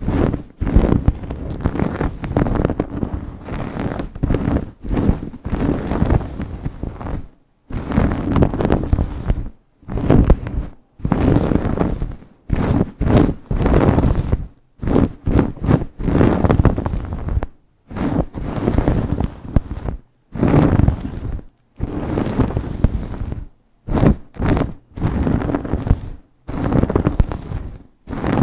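Long nails scratching and rubbing fast through hair on a scalp, close to the microphone: dense scratchy rustling in bursts of a second or two, each broken off by a brief silence.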